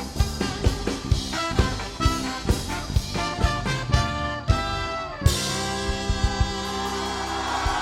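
Live pop band playing an instrumental break: drums keeping a steady beat under brass lines, then about five seconds in a cymbal crash and a long held chord.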